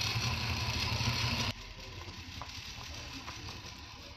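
1/10-scale RC rock crawler's electric motor and drivetrain running up close, a steady hum with a hiss over it. It cuts off abruptly about a second and a half in, leaving a quieter background with a few faint clicks.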